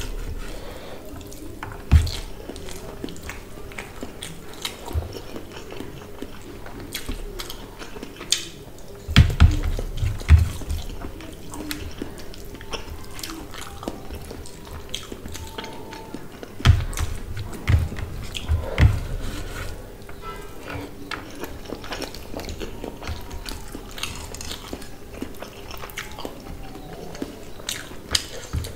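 Close-up eating sounds: fingers mixing and squeezing rice with wet fish curry on a metal plate, making soft squelches and clicks, with chewing and lip-smacking in between. A few heavier low thumps come in clusters about a third of the way in and again a little past halfway.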